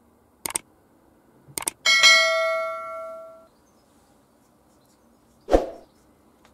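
Subscribe-button sound effect: two quick clicks, then a bell ding that rings out and fades over about a second and a half. A single dull thump follows near the end.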